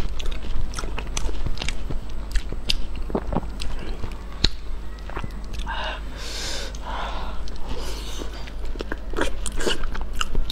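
Close-miked mouth sounds of a person eating soft pig brain: wet chewing with many sharp lip smacks and clicks, and a few hissing, slurping bursts about six to seven seconds in.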